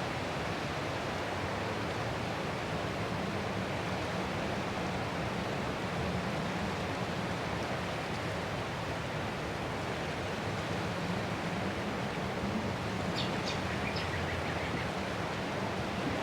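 Ocean waves washing onto the shore as a steady, even rush of surf. A few brief high chirps come about thirteen seconds in.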